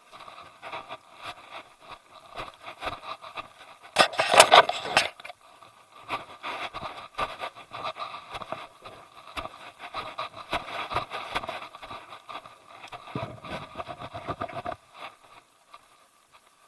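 Hiker's footsteps and body movement rubbing against a worn action camera: irregular crunches, clicks and scraping. A louder scrape lasts about a second, some four seconds in.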